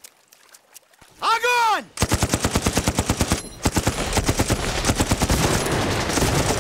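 Machine-gun fire. Rapid shots start about two seconds in and thicken from about four seconds into a continuous volley from several guns.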